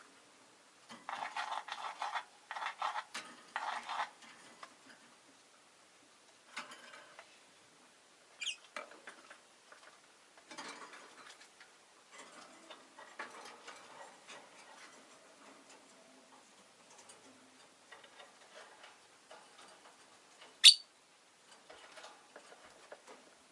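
Rosy-faced lovebird: a few seconds of rapid, scratchy chattering, then faint scattered clicks and scratches, and one sharp high chirp near the end, the loudest sound.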